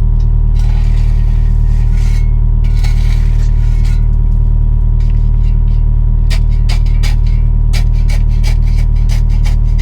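Kobelco SK55 mini excavator's diesel engine running steadily, with scraping from about half a second to four seconds in and a run of sharp clicks, as of gravel, from about six seconds on.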